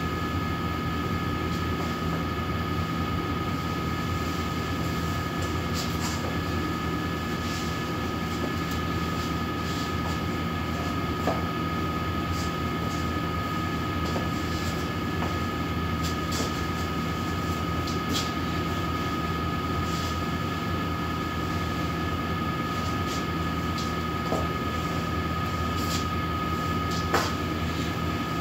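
A steady mechanical drone with a constant high whine, like a running fan or appliance, with a few faint clicks, the sharpest near the end.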